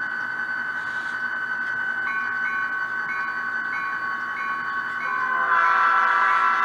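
Sound decoder (ESU LokSound V4 with a custom file) in an HO scale EMD SD40-2 model, played through its small speaker: the diesel engine sound runs steadily. About two seconds in, a bell starts ringing, about two and a half strokes a second. The horn sounds louder past the five-second mark.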